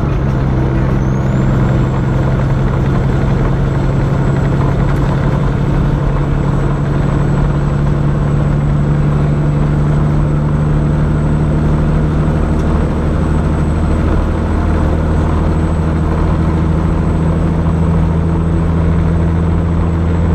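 Tractor-trailer's diesel engine droning steadily at highway speed with road noise, heard inside the cab. A thin high whine glides up about a second in and then holds; the sound cuts off suddenly at the end.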